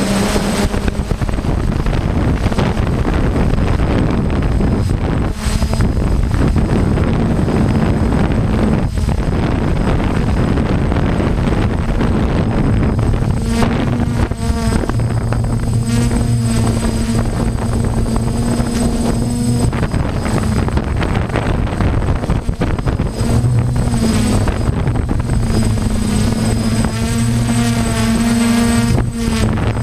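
Multirotor drone's propellers and motors whirring, picked up by the drone's own on-board camera along with rushing wind noise. From about halfway the motor hum comes through more clearly and its pitch wavers up and down as the drone hovers and adjusts.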